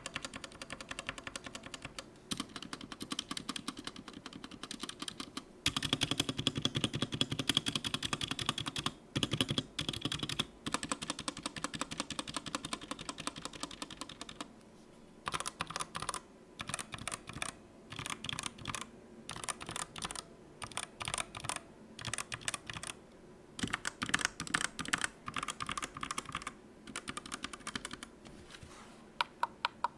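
Typing on a DA Meca 6x Plus 65% mechanical keyboard fitted with linear red switches: fast runs of keystrokes in bursts, with short pauses between them.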